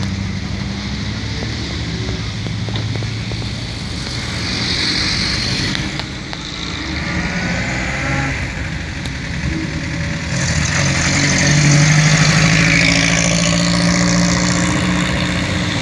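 Vintage car engines running at low revs as a slow procession of classic cars moves past. In the second half a vintage open two-seater sports car drives close by and its engine becomes the loudest sound.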